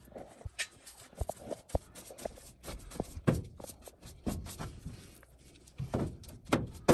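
Irregular knocks, taps and scrapes of a gloved hand spreading duct mastic along the seams and S-clips inside a galvanized sheet-metal duct transition.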